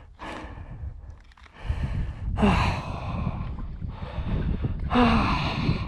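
A man's heavy, breathy sighs: two loud ones, about two and a half seconds in and again near the end, each with a short voiced edge.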